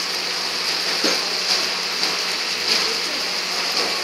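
Chili paneer sauce with onions and capsicum sizzling steadily in a stainless steel pan over the gas flame, with one light knock about a second in.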